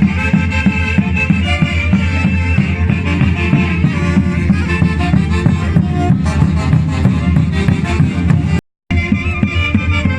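Instrumental music with a strong bass and a steady beat. The sound cuts out completely for a brief moment about eight and a half seconds in.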